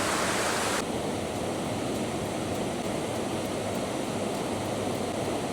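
Steady rushing water of a waterfall and stream. About a second in the sound changes abruptly, losing much of its high hiss, then stays steady.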